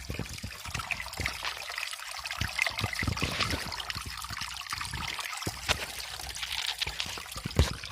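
Water of a small spring-fed stream running and splashing steadily, with dull low thumps throughout.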